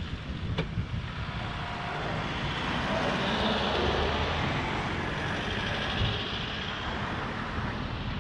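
A van and then a car drive past close by. Their tyre and engine noise rises to a peak about three to four seconds in and then eases off, over a steady low rumble of wind on the microphone.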